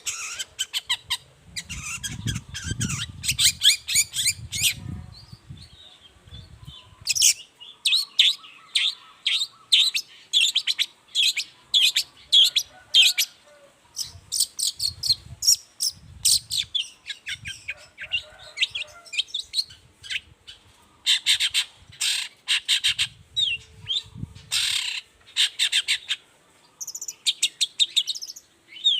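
Long-tailed shrike (cendet) singing a fast, chattering song of many short, sharp notes, with occasional low thuds underneath.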